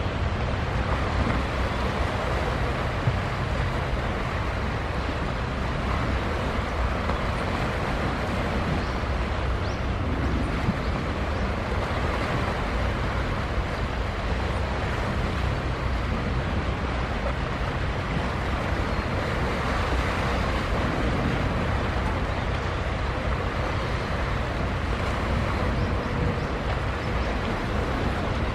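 Steady low rumble under a wash of wind and wave noise, even throughout with no single event standing out.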